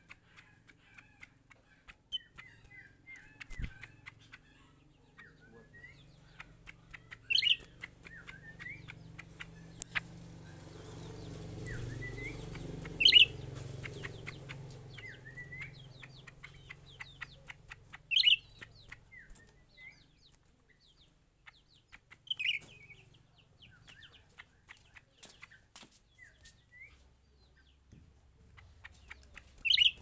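Small caged songbird chirping and twittering, with five loud, sharp short calls spaced several seconds apart, and light ticks as it hops about the cage. A low rumble swells and fades through the middle.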